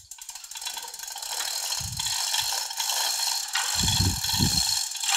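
Hand-pulled chain hoist lifting a heavy cast-iron saddle: the hoist's ratchet pawl clicks rapidly and steadily as the hand chain rattles through. A few dull low thuds come about two seconds in and again around four seconds in.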